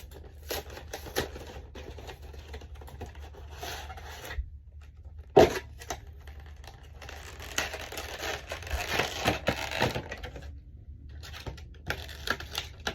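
Pokémon card pack being opened by hand: packaging tearing and crinkling in bouts, with scattered clicks and one sharp knock about five seconds in.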